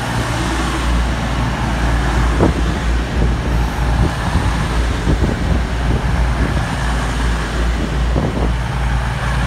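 Class 222 Meridian diesel multiple unit running into the platform, its underfloor diesel engines and wheels giving a steady low rumble as the carriages pass, with a few short knocks from the wheels on the track.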